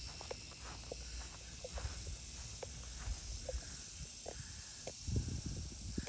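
Footsteps through grass, with a steady high drone of insects behind them and a few faint short chirps.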